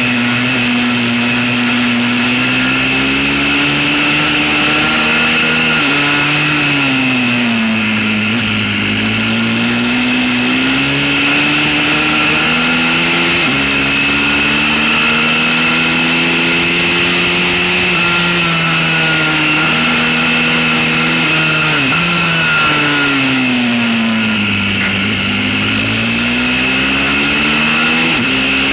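Pit bike's small single-cylinder engine ridden hard on track: its pitch climbs and jumps at gear changes, and twice sweeps down and back up as the rider slows for a corner and accelerates out, with wind rush on the microphone.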